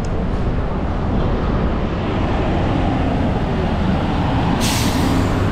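Street traffic with a vehicle engine running loud and close, a steady low rumble, and a sharp hiss lasting about a second near the end.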